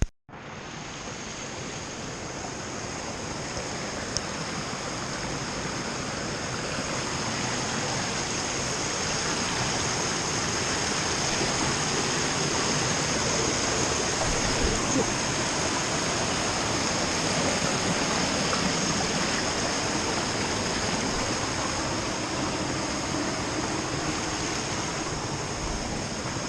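Water rushing steadily in a creek, slowly swelling a little louder toward the middle, with a steady high-pitched drone above it.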